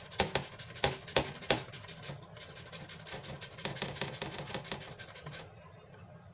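Unripe papaya being grated on a flat metal grater inside an aluminium pot: quick repeated scraping strokes that stop about five seconds in.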